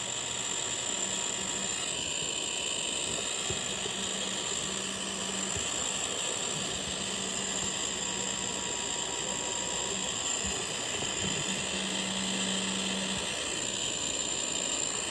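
Electric heat gun running steadily: a small fan motor's hum under a constant hiss of blown air.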